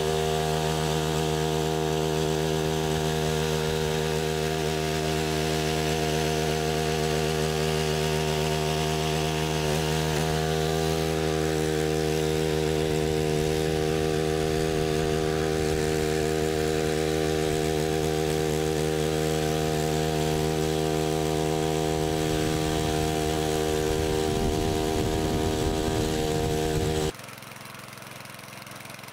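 Walk-behind tiller's small petrol engine running steadily under load while its rotary tines churn the soil. About two seconds before the end the sound drops suddenly to a much quieter engine sound.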